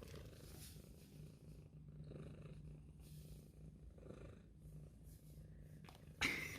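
Domestic cat purring, a low steady rumble that swells and eases with its breathing about every two seconds. A short, louder rush of noise comes near the end.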